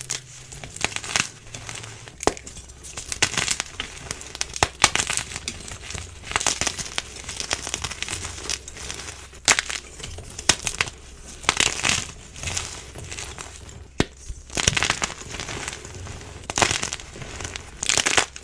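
Blocks of dyed, glittery gym chalk being crushed and crumbled, crunching in irregular bursts every second or two with sharp crackling snaps.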